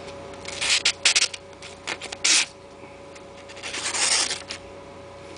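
A freshly sharpened knife blade slicing through a hand-held sheet of paper to test its edge: a few short papery swishes and rustles, the loudest about two seconds in.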